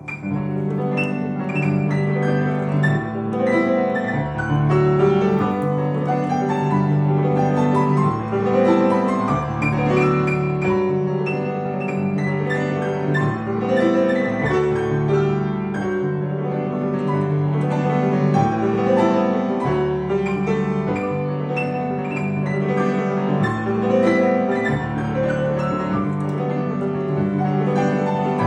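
Piano music: a piece played over a steady, repeating pattern in the bass.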